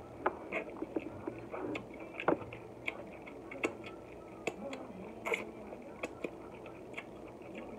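Close-up mouth sounds of eating crab legs: irregular wet smacks and sucking clicks as crab meat is pulled off the shell and fingers are licked.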